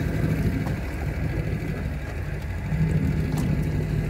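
Small boat's outboard motor idling steadily as a low hum, with a short click about three and a half seconds in.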